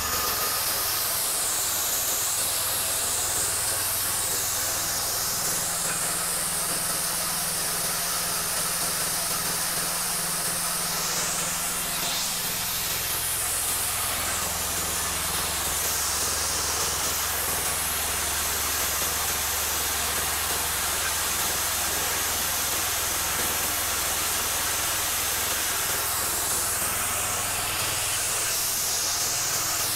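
Small Chinese petrol engine driving a hammer-mill chopper-grinder that is milling dried corn kernels into meal: a steady engine hum under a loud rushing hiss from the grinding. The engine's pitch shifts slightly a few times as the load changes.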